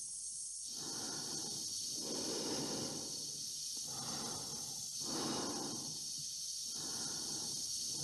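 An astronaut breathing heavily inside a spacesuit helmet, quick regular breaths in and out, over a steady high hiss.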